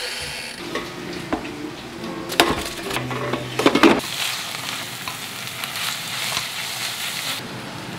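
A few clicks and knocks as an air fryer's timer dial is turned. About halfway through, ground meat sizzles in a stainless steel pot as it is stirred with a spatula. The sizzling stops shortly before the end.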